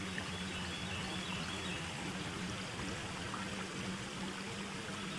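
Steady rushing noise with a faint low hum beneath it, even throughout, with no distinct splashes or knocks.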